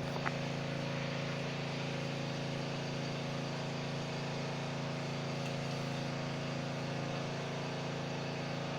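Pressure washer's small engine running steadily in the background, a constant even drone with no change in speed.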